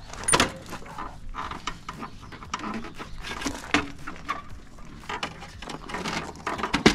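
Plastic side cover of a compact tractor's engine bay being pried and pulled off by hand: a run of clicks, knocks and scrapes as the panel and its clips come loose, with sharper knocks just after the start and at the very end.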